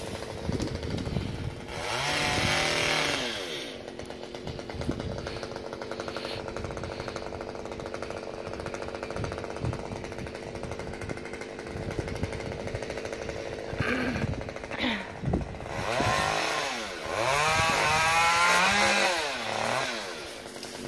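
Chainsaw idling, revved up briefly about two seconds in and again, rising and falling in pitch, for several seconds near the end.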